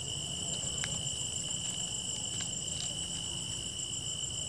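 Night insects, crickets among them, trilling steadily at several high pitches over a low rumble, with a few faint clicks.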